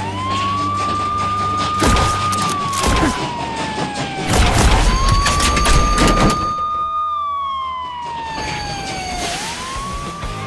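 Police car siren in a slow wail: each cycle rises quickly, holds high, then falls slowly, about every four and a half seconds. Loud bursts of noise cut in about two and three seconds in, and a longer rush of noise comes around the middle.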